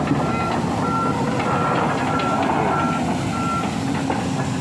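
Heavy equipment's back-up alarm beeping at a steady pace, one beep a little over every half second, over a running diesel engine. The beeping stops about three and a half seconds in, while the engine keeps running.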